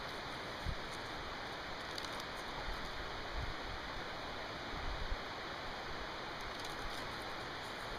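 A steady rushing hiss of outdoor background noise, with a few soft low thumps.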